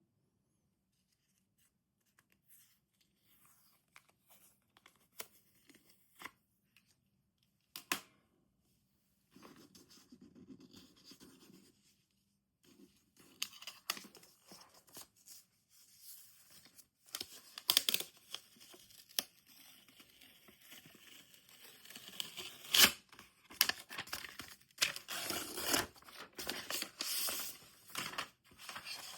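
Product packaging being handled and torn open: a few scattered clicks and taps at first, then rustling, tearing and crinkling that grows busier and louder over the second half, with sharp snaps among it.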